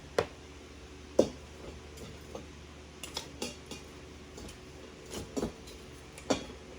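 Roasted pork bones knocking against the metal inner pot of an Instant Pot as they are put in and shifted to fit: a string of sharp clunks and clinks, the loudest two in the first second and a half.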